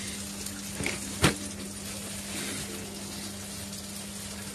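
Steady low hum and hiss of kitchen background noise, with one sharp click about a second in.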